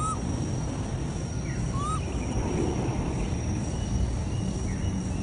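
Outdoor background rumble, steady and low-pitched, with two short chirping calls about two seconds apart and a faint steady high tone.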